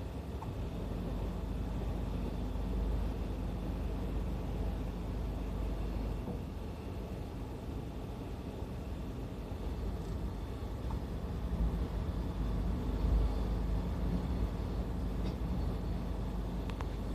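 Freight train hauled by an EF66 electric locomotive rolling past at a level crossing: a steady rumble of wheels on rails that swells and eases slightly.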